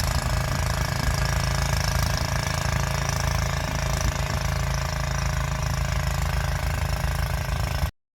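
A 12 hp MTD Snowflite snowblower's engine running steadily, with its freshly replaced auger belt, cutting off suddenly near the end.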